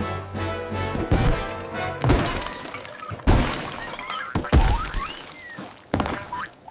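Cartoon orchestral chase music punctuated by a rapid string of crash and smash sound effects, about eight sharp impacts, some of them ringing on briefly.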